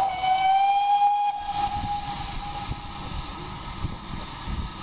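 Steam locomotive's whistle sounding one long blast, rising slightly in pitch, loudest for the first second and a half and fading out about three seconds in.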